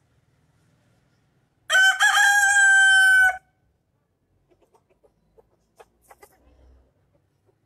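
A rooster crows once, loudly, starting a little under two seconds in and lasting about a second and a half. A few faint clucks and small scratching sounds follow.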